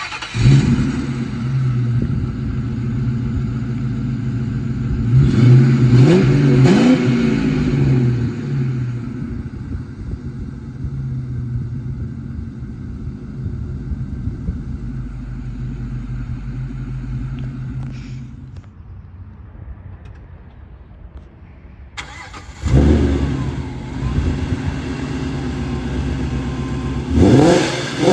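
Ford Mustang V8 with an aftermarket X-pipe exhaust starting up and idling, revved twice about six seconds in, then going quiet after about eighteen seconds. About twenty-two seconds in, a second Mustang V8 exhaust starts up, idles and is revved near the end.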